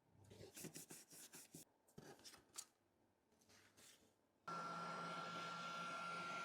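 Faint scraping and clicking of small tools working on a phone. About four and a half seconds in, an electric tool switches on with a steady rushing hiss and a thin high whine.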